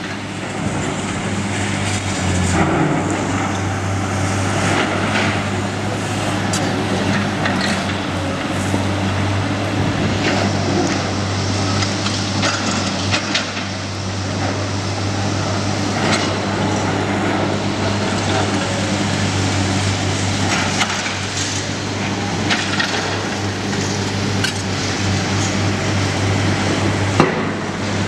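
Demolition work on a concrete car park: a heavy machine's engine drones steadily while concrete cracks and crunches in many irregular sharp snaps.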